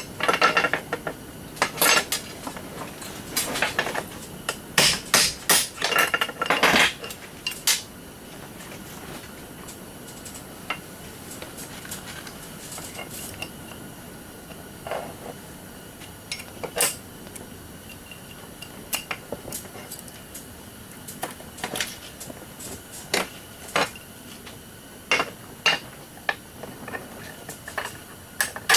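Hand tools and metal parts clinking and knocking as a reciprocating saw is taken apart for scrap. The sharp clicks come in irregular clusters, busiest in the first several seconds, with a quieter stretch in the middle.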